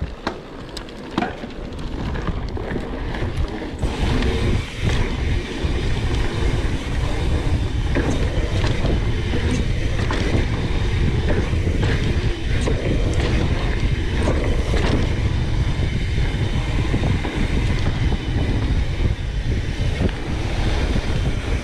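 Wind rumbling over the camera microphone on a mountain bike ridden fast downhill, mixed with the bike's rattles and knocks over the trail. It builds over the first few seconds, then stays loud and steady.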